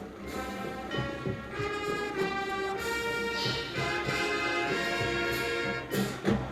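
Drum and bugle corps brass line playing held chords, with a loud hit about six seconds in.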